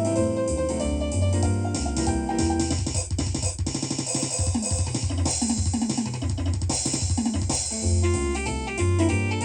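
Small-group jazz: piano and bass over a drum kit, with the drums taking a short break for a few seconds in the middle before the piano and bass come back in.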